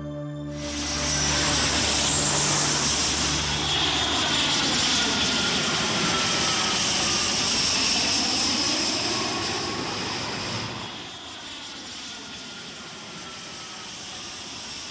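Jet airliner's engines roaring past: the roar swells in about a second in, holds, then dies down near eleven seconds, with faint falling whines over it.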